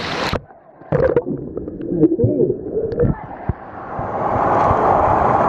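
A waterproof camera's microphone going under the water in a swimming pool. About half a second in, the sound turns muffled and dull, and warbling voices and a few knocks come through the water. From about three seconds in, a rising rush of water builds as the camera nears the surface.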